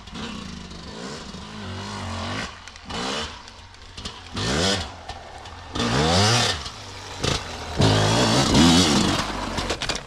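Enduro dirt bike engine under hard riding, the throttle opened and closed again and again so the engine's pitch rises and falls in bursts, the loudest about halfway through and near the end.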